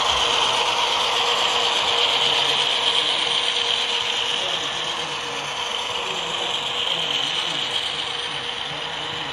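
Model freight train's boxcars rolling past on the layout's track: a steady metallic rattling of small wheels over rails and joints, easing slightly in the second half.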